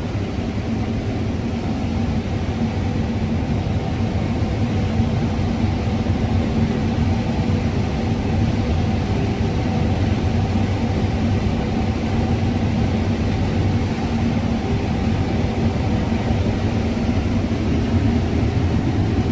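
Combine harvester running steadily while harvesting corn, heard from inside the cab: an even, unbroken drone of engine and machinery with a few faint steady tones over a low rumble.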